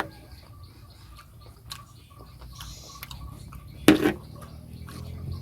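Eating sounds: two loud, sharp clicks, one at the start and one about four seconds in, with faint small ticks and taps between them.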